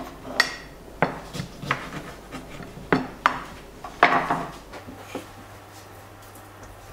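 Knife cutting a lemon in half on a wooden board and plate: a string of sharp knocks and clatters over the first four seconds or so, then only faint handling.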